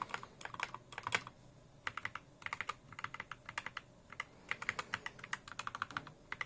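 Typing on a mechanical keyboard with lubed, filmed MX-style switches in a foam-dampened case: quick runs of keystrokes with a couple of short pauses. The clacks are muted by the case foam.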